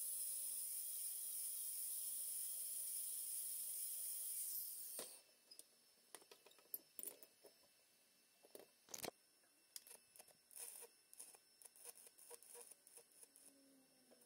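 A steady high-pitched hiss that cuts off sharply about five seconds in, followed by scattered light clicks and knocks.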